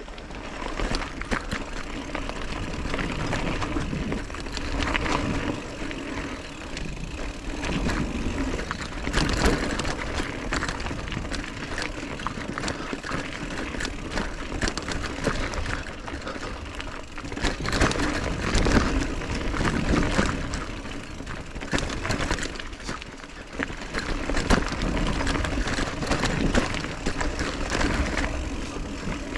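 Mountain bike riding over a rocky gravel singletrack: tyres crunching over loose stones and the bike rattling over bumps, with a constant low rumble.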